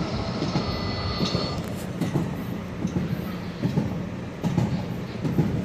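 Staten Island Railway subway car running on the line, heard from inside the car: a steady low rumble of wheels on rail with irregular knocks. Faint high steady tones sound in the first second and a half, then fade.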